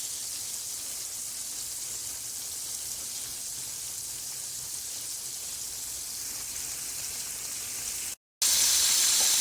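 Floured chicken tenders deep-frying in hot oil, a steady sizzle. About eight seconds in it cuts out for a moment and comes back louder.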